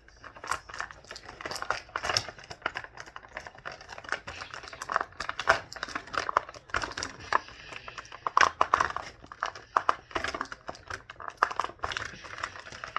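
Plastic packaging crinkling and rustling with irregular clicks and snaps as an action figure and its accessories are worked free of the package.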